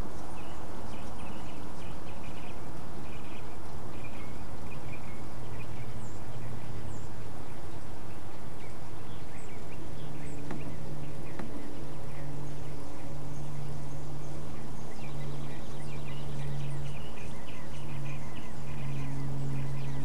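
Steady hiss with scattered faint, short high chirps; from about halfway a low hum comes and goes in pieces.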